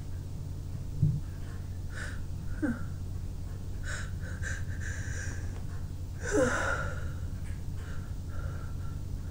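A person's wheezy, catching breaths as a nose tickle builds toward a sneeze, then one sneeze about six seconds in, with a voiced cry that falls in pitch. A low thump about a second in.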